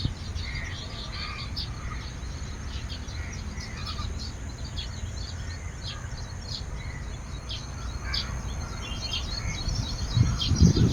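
Weaver birds chattering with many quick, high chirps over a steady low rumble that grows louder near the end.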